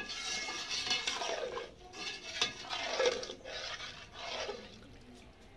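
A metal ladle stirring thin rasam in an aluminium pot, the liquid sloshing and swishing in three bouts as freshly added water is mixed in.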